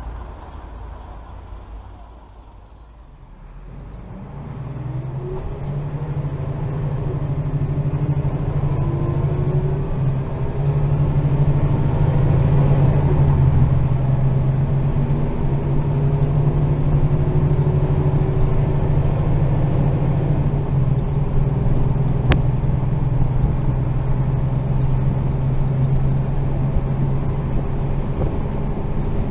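Diesel city bus engine heard from inside the passenger cabin while the bus drives: a steady low drone that starts after a quieter first few seconds, its pitch climbing several times as the bus pulls away and accelerates. A single sharp click a little past the middle.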